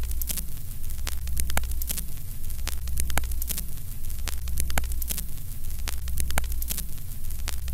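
Vintage film-countdown sound effect: a steady low hum under static crackle, with a sharp click about twice a second.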